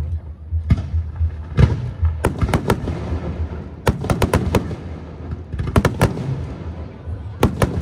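Aerial firework shells bursting in a display: sharp bangs, one at a time at first, then in rapid clusters of three to five. A steady low rumble runs underneath.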